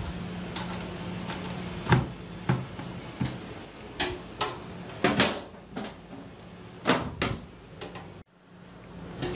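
Scattered knocks and clunks from hands working at a metal fire alarm panel cabinet, about eight at irregular spacing, over a steady low hum.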